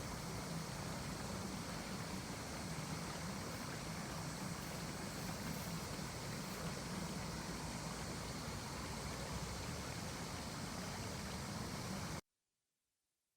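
Steady rain falling, an even hiss that cuts off abruptly about twelve seconds in.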